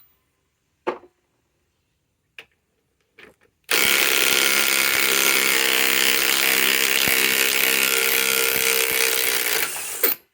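DeWalt DCF921 Atomic 1/2-inch cordless impact wrench running on a fastener for about six seconds, starting about four seconds in and stopping sharply just before the end. It is preceded by a few faint clicks of handling.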